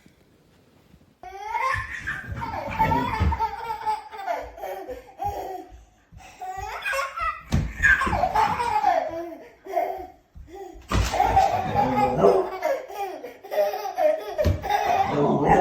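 Someone laughing hard in repeated bursts, starting about a second in, with two short breaks partway through.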